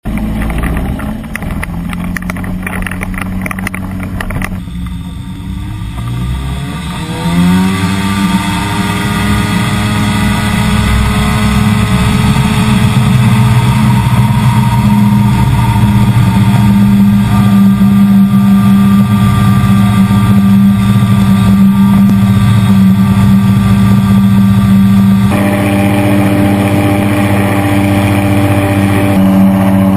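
Ultralight trike engine driving its pusher propeller: running at low power at first, then throttled up with a rising pitch about five to seven seconds in, and held at steady full power for the takeoff roll and climb.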